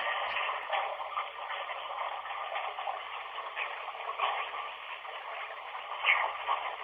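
Running water giving a steady rushing hiss with small swells in level, sounding thin and confined to the middle of the range.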